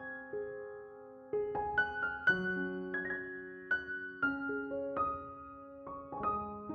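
Background piano music: slow, gentle notes struck one after another and left to ring.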